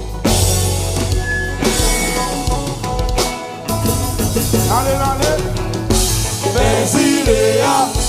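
Live band playing Haitian popular music with a full drum kit and heavy bass on a steady beat; a singer's voice comes in about halfway through.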